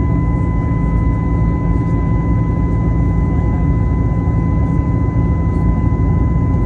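Airliner cabin noise during the climb after takeoff: a loud, steady low rumble of the engines and rushing air, with a steady high-pitched whine over it.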